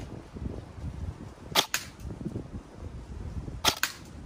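Airsoft replica AR-15 firing plastic pellets, two single shots about two seconds apart, each a sharp double snap.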